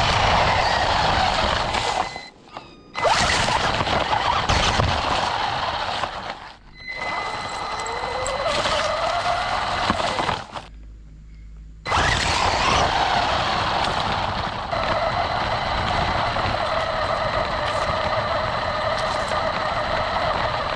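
Onboard sound of an RC car driving over a rough road with dry leaves: the motor whines, rising and falling in pitch with the throttle, over the rattle and hiss of the tyres. The sound cuts out briefly three times, for about a second each, as the throttle is let off.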